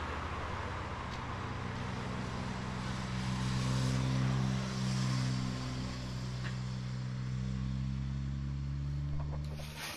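Motor vehicle engine running at a steady pitch, a little louder about three to five seconds in, then cut off abruptly near the end.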